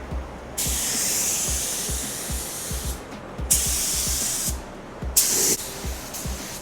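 Paint spray gun spraying paint onto a car body in three trigger pulls: a hiss of about two seconds, then one of about a second, then a short burst. Background music with a steady beat plays underneath.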